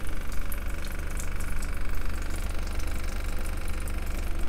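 Kitchen faucet running open into a stainless steel sink, with the RV's 12-volt water pump running steadily underneath as a constant low hum, while air is purged from the water lines. Scattered sharp ticks sound over the water.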